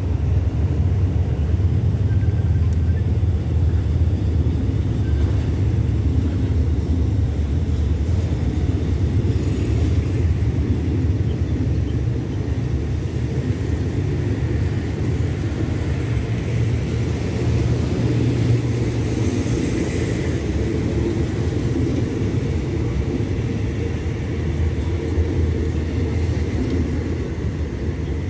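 Passenger train coaches rolling past as the train pulls out of the station, a steady low rumble of wheels on the rails.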